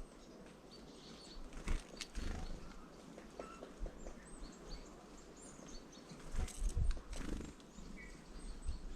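Small songbirds at a feeder giving faint, scattered short chirps and call notes, with a few dull low thumps in between.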